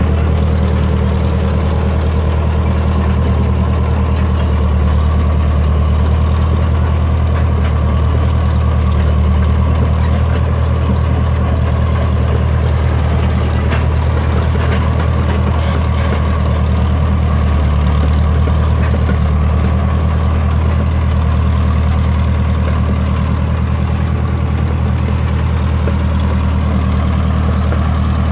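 International Harvester TD-9 crawler dozer's diesel engine running steadily as the dozer travels, a low, even drone with no change in pace.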